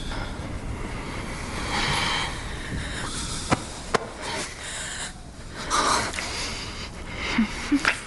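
Breathing and kissing sounds between two people: breathy exhales at about two and six seconds, and a few short lip smacks.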